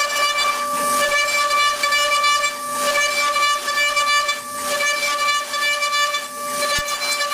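CNC vertical machining centre running, its spindle giving a steady high whine, with a rushing hiss that swells about every two seconds.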